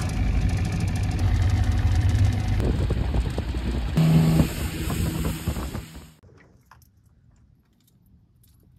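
Boat outboard motor running loudly close by, with a brief rise in pitch about four seconds in. It stops abruptly about six seconds in, leaving only a faint low background.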